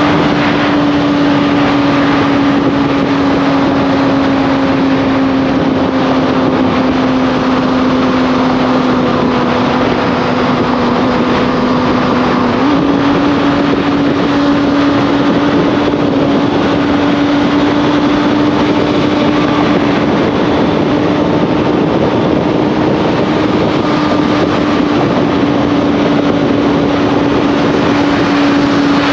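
Motorcycle engine running at a steady cruise under heavy wind rush. The engine note sags slowly, then steps up abruptly about 13 seconds in.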